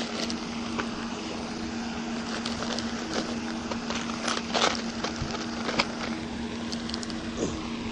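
A steady motor hum over a constant noisy background, with a few short clicks in the middle.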